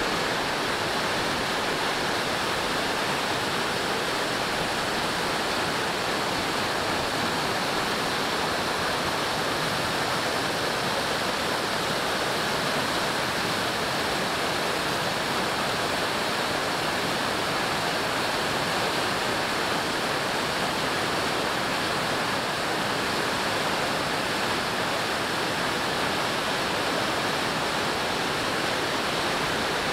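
Rushing water: a steady, unbroken rush of fast-flowing or falling water that holds an even level throughout.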